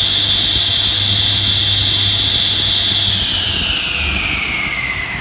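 12-inch table saw with a scoring blade, driven by an induction motor, running free with no wood at a steady high whine. About three seconds in the whine begins to fall in pitch and fade as the blade spins down.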